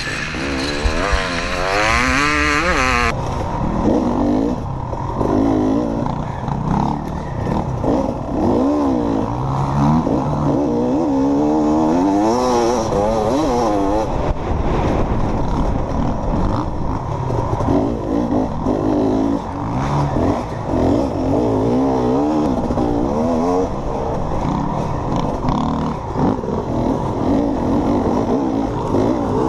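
Dirt bike engine under hard riding, its pitch rising and falling over and over as the throttle opens and closes and the gears change. For the first three seconds several bikes run together, then one engine carries on alone.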